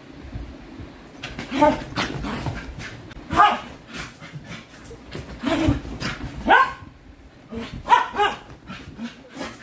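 A dog barking and yipping in short calls, about half a dozen spread a second or so apart, some rising in pitch.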